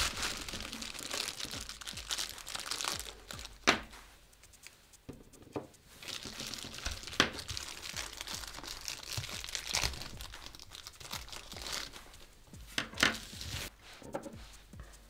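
Clear plastic packaging bag crinkling and rustling as it is handled and pulled open by hand, with several sharp crackles spread through it.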